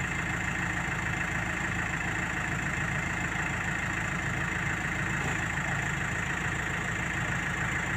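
Case backhoe loader's diesel engine idling steadily.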